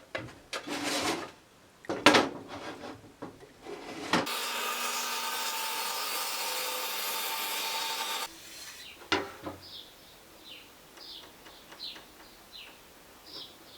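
Pieces of wood knocking and rubbing together, then about four seconds of a steady whining power-tool noise that cuts off abruptly. Small birds chirp in short notes near the end.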